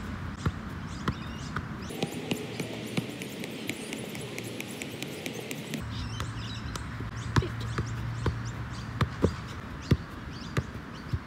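A soccer ball being juggled: a steady run of dull thuds, roughly two a second, as the ball is knocked up off the feet, knees and chest.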